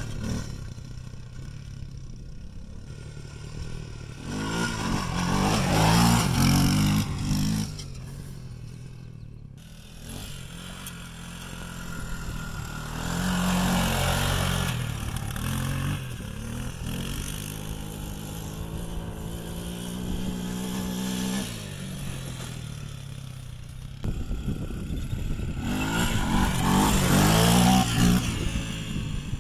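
Honda TRX300EX quad's single-cylinder four-stroke engine revving in repeated bursts as the ATV is ridden and slid around on grass, its pitch rising and falling. It is loudest in bursts a few seconds in, around the middle and near the end, and eases off in between.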